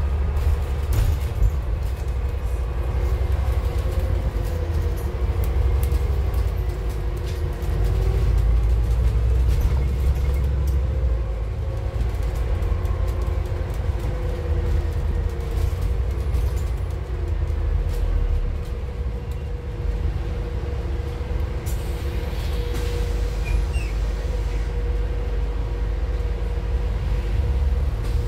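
A Scania N280UD double-decker bus driving, heard from the upper deck: its compressed-natural-gas Scania DC09 engine and Voith four-speed automatic give a steady low rumble, with a whine that wavers in pitch.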